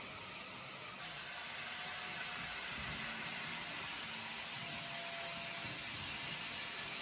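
Kato N gauge E300 Eurostar and Class 800 Azuma model trains running on their track: a steady hiss of wheels and small motors, getting louder about a second in.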